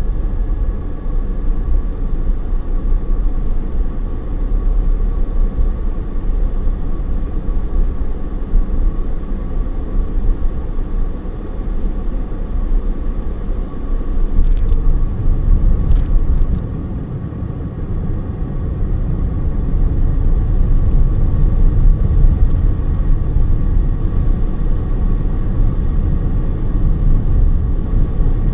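Car driving, heard from inside the cabin: steady low road and engine rumble, with a few faint clicks about halfway through and a short dip in loudness just after.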